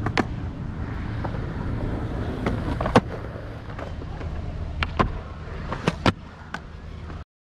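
Skateboard rolling with a steady rumble of its wheels, broken by several sharp clacks of the board, the loudest about three seconds in. The sound cuts off suddenly near the end.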